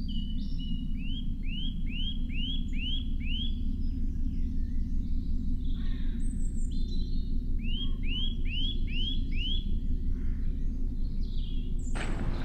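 A songbird singing: twice, a run of five quick notes that each rise and fall, with other scattered chirps. A steady low rumble runs underneath.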